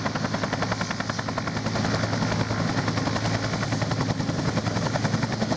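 Bell UH-1 Huey-type helicopter running on the ground with its two-blade main rotor turning: a fast, even blade slap of about ten beats a second over a steady low hum.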